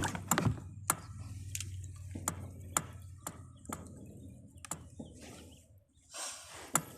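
Spinning fishing reel being cranked to retrieve a cast: light clicks about twice a second over a low steady whir, then a brief rush of noise a little after six seconds.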